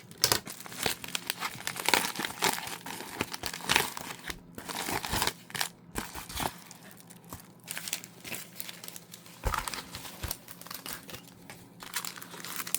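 Packaging crinkling and tearing in irregular bursts as a mailed package of trading cards is unwrapped by hand.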